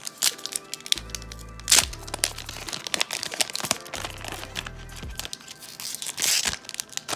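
Crinkling and tearing of a hockey card pack's wrapper as it is opened, in sharp crackles with the loudest about two seconds in and again near the end. A background music track with a steady bass line plays underneath.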